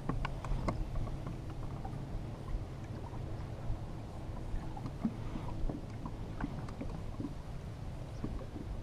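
Ambient sound aboard a small fishing boat: a steady low rumble with scattered light knocks and clicks.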